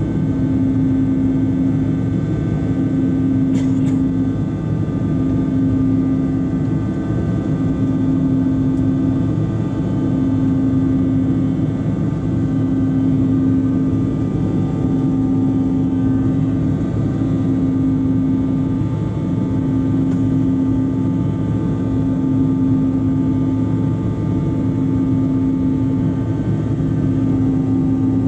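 Cabin noise inside a CRJ-900 regional jet in flight: a steady rush of air with the hum of its two rear-mounted General Electric CF34 turbofans. The low hum swells and fades about every two seconds.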